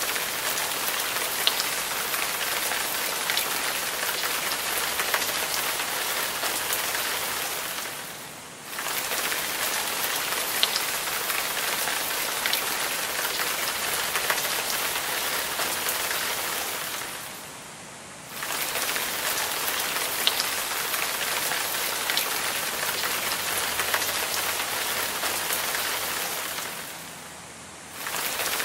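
Garden water curtain: a sheet of water falling from an overhead beam and splashing below, a steady rain-like hiss with scattered drips. It drops away briefly about every nine to ten seconds and then comes straight back.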